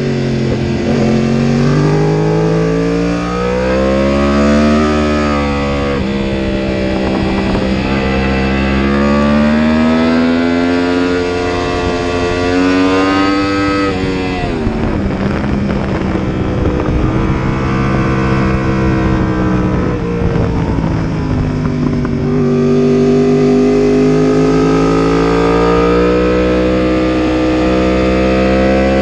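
Yamaha R1's crossplane inline-four engine at speed, heard from onboard the bike: revs climb on the throttle and fall away on braking several times, with a sharp drop about halfway through before it pulls hard again. Wind rushes steadily over the bike throughout.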